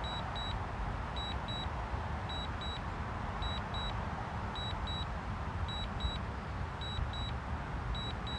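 Drone remote controller sounding its return-to-home alert: short, high double beeps repeating about once a second over a low steady rumble of background noise.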